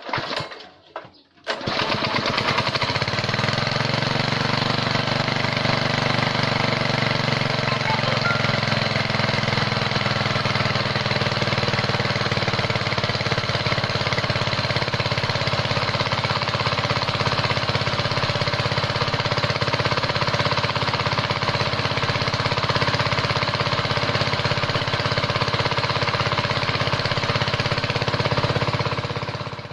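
Small petrol engine of a high-pressure washer, converted to run on LPG from a 3 kg gas cylinder, being started. Two short bursts come at the start, then it catches about a second and a half in and runs steadily. It cuts off right at the end.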